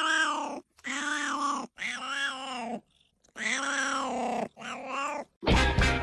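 A cat yowling: five long, drawn-out calls of about a second each, each rising and then falling in pitch, with short breaks between. About five and a half seconds in, upbeat swing music starts.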